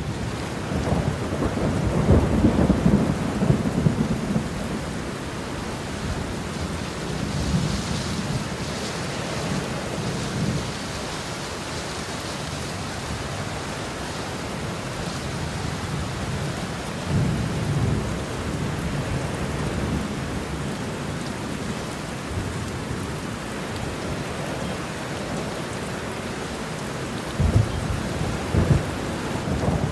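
Steady rain falling, with repeated low rumbles of thunder: loudest a couple of seconds in, again around a third of the way through, and twice close together near the end.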